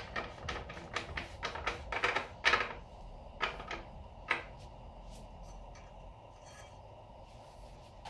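Ratchet wrench clicking at about five clicks a second as the rear axle nut is run down. The clicking stops about three seconds in, followed by a few separate clicks and faint taps.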